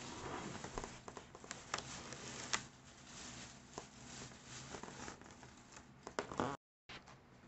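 Felt-tip marker scratching and squeaking across a foil (mylar) balloon as writing goes on it, with the foil crinkling under the hand. Short sharp squeaks stand out a couple of times, and the sound cuts out completely for a moment near the end.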